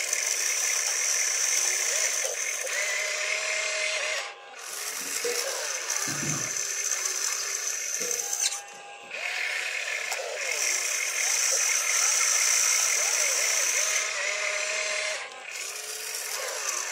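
Radio-controlled excavator's small electric motors whining steadily as it digs and swings, with brief pauses about four, eight and a half and fifteen seconds in. A low thump about six seconds in.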